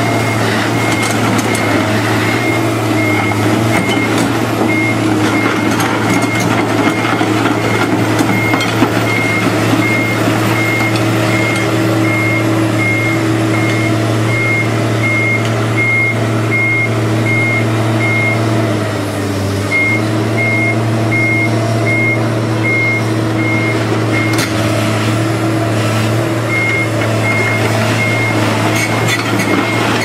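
Komatsu PC210LC crawler excavator's diesel engine running steadily while its travel alarm beeps evenly, roughly three beeps every two seconds. The beeping stops briefly a little before the middle and again about two-thirds of the way through, and the engine dips for a moment near the first of these stops.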